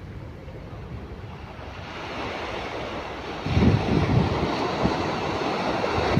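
Sea surf breaking and washing up a pebble beach, with wind rumbling on the microphone. It grows louder and more gusty about three and a half seconds in as a wave breaks close by.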